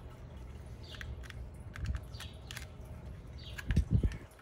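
The hard plastic shell of a Zhu Zhu Pet toy being handled and pressed together around its wiring: scattered small clicks and short plastic scrapes, with two dull thumps just before the end.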